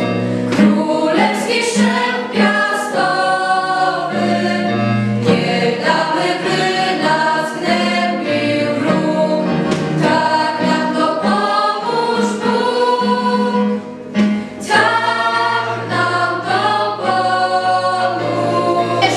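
A teenage choir, mostly girls' voices, singing a Polish song in unison over low held notes, with a short break between phrases about three quarters of the way through.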